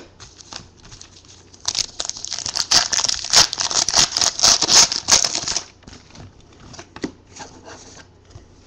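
Crinkly trading-card packaging rustling and crackling for about four seconds, with small clicks and taps as cards are handled, then only scattered light ticks.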